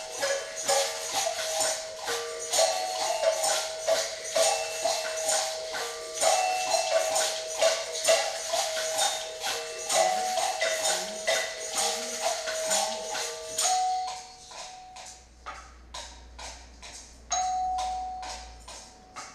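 A drum circle group playing hand drums together in a dense, steady rhythm, with shakers or tambourines and a line of held, stepping notes on top. About two-thirds of the way through, the playing thins out to sparse single strikes.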